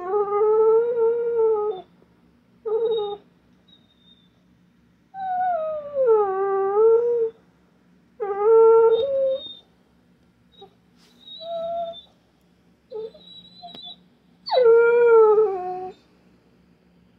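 A dog whining and howling in a series of pitched cries: three long, wavering ones that dip and slide in pitch and several short ones, with pauses between. It is the distress crying of a dog missing its absent owner.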